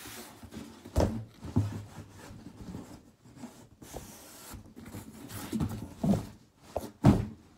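A package being handled and opened by hand: irregular rustling and scraping, with a few dull thumps, the loudest about a second in and another near the end.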